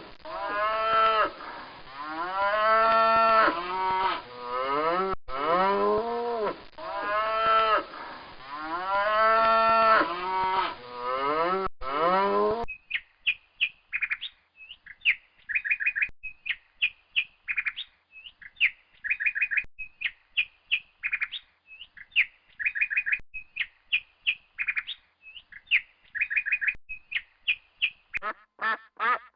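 Cattle mooing in a run of short calls that rise and fall in pitch, until a sudden switch about halfway through to a small bird chirping rapidly and repeatedly in short high notes.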